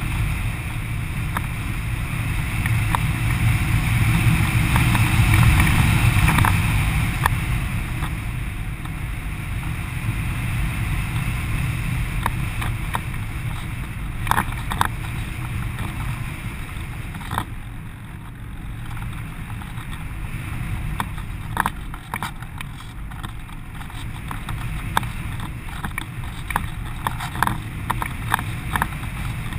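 Airflow rushing past a GoPro in its housing on the wing of a ParkZone Radian RC glider in flight: a steady low rush that eases off after about seven seconds. Scattered faint clicks.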